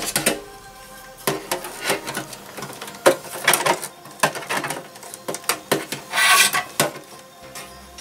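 Irregular clicks, rattles and scrapes of hands handling computer power cables and a sheet-metal drive cage in an open desktop case, the loudest clusters about three and six seconds in. Faint background music underneath.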